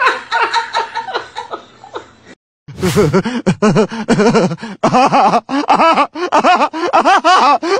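A person laughing in rapid, repeated bursts, broken by a short gap and a click about two and a half seconds in, after which the laughter comes faster and louder.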